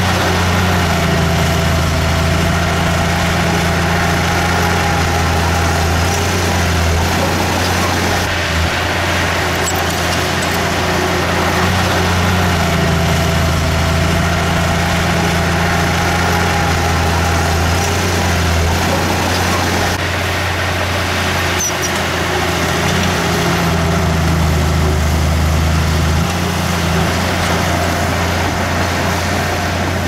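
Diesel engine of heavy earthmoving machinery running steadily as a low drone that rises and falls slightly with the load.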